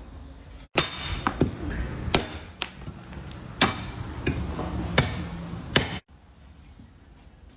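Hammer blows on steel, about eight sharp, irregularly spaced strikes with a metallic ring, cut in between quieter stretches.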